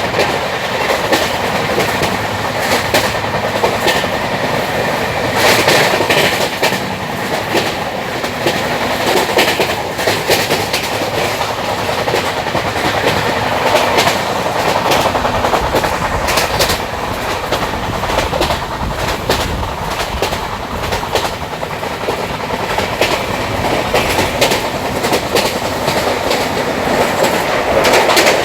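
A moving train: a steady rumbling run of wheels on the rails, with sharp clicks and clatter as the wheels pass over track joints.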